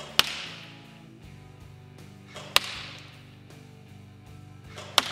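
Three single shots from an Ares/Begadi Otto Repa SOC SLR airsoft sniper rifle, about two and a half seconds apart. Each is a sharp crack with a reverberant tail from the hall, heard over background music.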